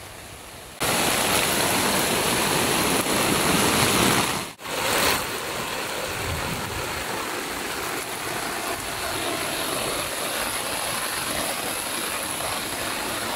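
Heavy rain pouring down, a loud steady hiss. It starts abruptly about a second in, cuts out briefly just before the halfway point, then carries on a little quieter.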